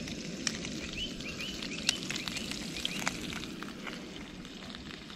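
Frying pan sizzling and crackling as eggs cook, with a few short bird chirps over it. The sizzle eases off near the end.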